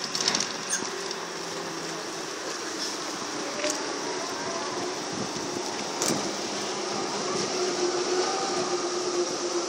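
Škoda 15TR articulated trolleybus pulling away, its electric drive whining and climbing slowly in pitch as it gains speed, over steady street noise. A few short sharp clicks, the loudest about six seconds in.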